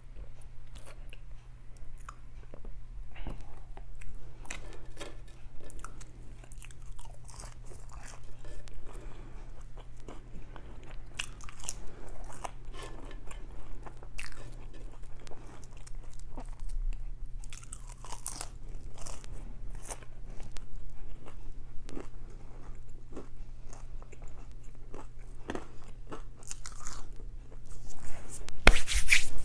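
Close-miked eating: chewing with scattered crunches and bites, the loudest near the end, over a steady low hum.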